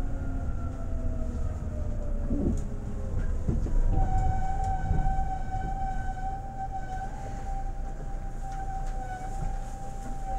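Seibu 2000 series electric train running: steady low rumble, with motor tones slowly falling in pitch, then from about four seconds in a steady high electrical whine.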